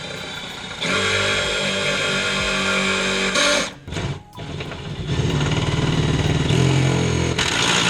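Upbeat background music with plucked strings, cut off briefly a little before the middle.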